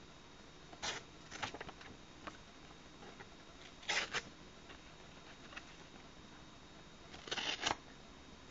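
Short scrapes and rustles in four brief clusters, about a second in, around one and a half seconds, around four seconds and near the end: the sound of a pocketknife being handled.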